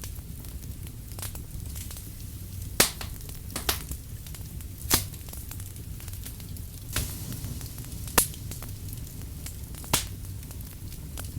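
Burning firewood crackling, with about six sharp pops at irregular intervals over a steady low rumble of the fire.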